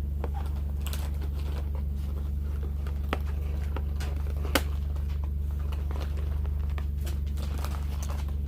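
Toy packaging being handled and opened by hand: scattered crinkles and small clicks, with a sharper click about four and a half seconds in, over a steady low hum.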